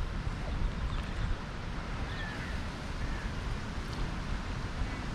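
Wind buffeting the microphone as a steady low rumble, with a few faint high chirps about two seconds in.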